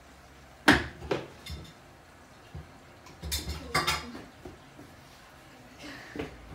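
A series of sharp knocks and clatters from a child slapping a hard plastic folding step stool and running and jumping on a tiled floor. The loudest knock comes about a second in, and a quicker cluster of knocks follows midway.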